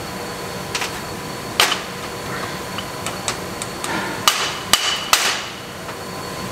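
Master cylinder knocked against a steel bench vise: about seven sharp, irregular metallic knocks, the strongest in the second half, with a short ring after the last. The cylinder is being banged to jar its stuck internal piston loose for disassembly.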